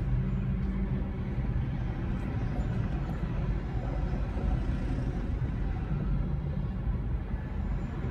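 Steady low rumble of a car inside its cabin, idling and creeping forward in stop-and-go traffic, with a faint engine hum.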